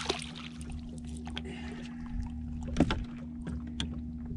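A hooked channel catfish splashing at the surface beside a fishing boat as it is reeled in. This is followed by scattered clicks and knocks, one louder about three quarters of the way through, over a steady low hum.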